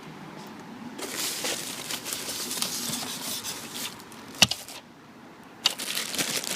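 Plastic wrap crinkling and rustling as it is handled, with two sharp clicks, one about two-thirds of the way in and one about a second later.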